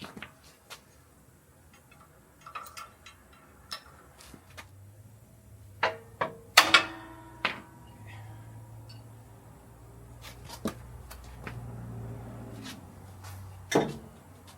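Scattered knocks and clanks, the loudest about seven seconds in with a short ring after it, over a low steady hum that starts about four and a half seconds in.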